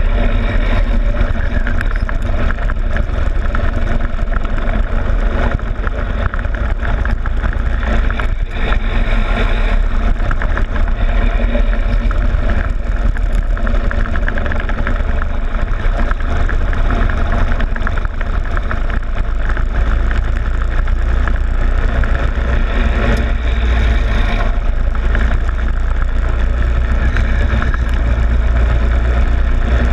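Go-kart engine running while the kart laps, heard from a camera on its front plastic fairing, with a heavy, steady low rumble of vibration and wind.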